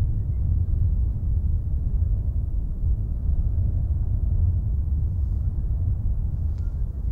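Deep, uneven low rumble of a Boeing 777-300 airliner approaching in the distance on final approach, with no higher engine whine over it. A faint click comes about six and a half seconds in.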